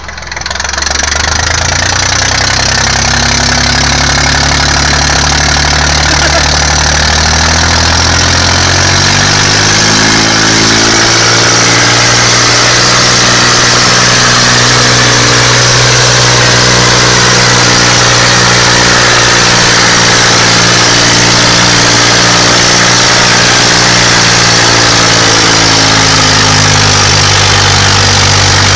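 John Deere 510 tractor's diesel engine revving up to full throttle and labouring under heavy load while pulling against a wheel loader. Its pitch climbs over the first ten seconds or so, then holds high and steady, easing down slightly near the end.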